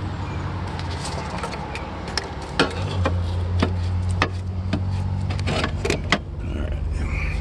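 Hands handling hardware: about a dozen sharp clicks and light knocks, spaced unevenly, over a steady low hum.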